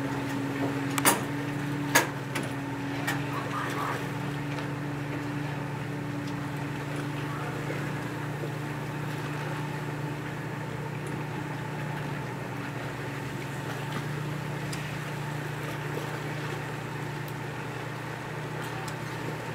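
Steady low mechanical hum, like a motor running at a constant speed, with two sharp knocks about one and two seconds in.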